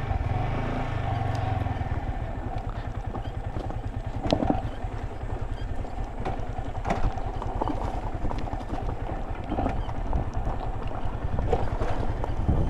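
Motorcycle engine running steadily as the bike rides along: a continuous low rumble, with a few short knocks and clatters.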